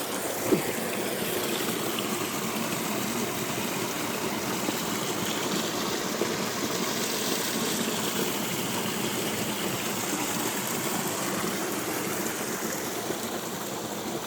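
Stream water running steadily, with one brief sharp knock about half a second in.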